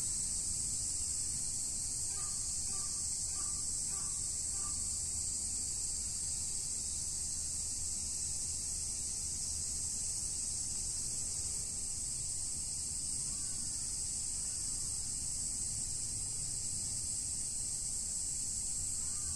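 Steady high-pitched chorus of insects, with a steady low rumble underneath. A bird gives about five short notes a few seconds in.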